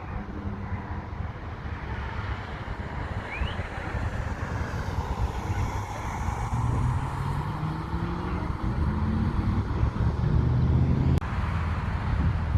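Aircraft engines rumbling, growing louder with a slowly rising pitch. A single sharp click near the end.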